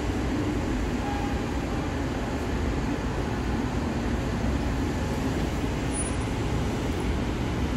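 Steady rumble and hiss of a Miami-Dade Metromover car running along its guideway, heard from inside the car.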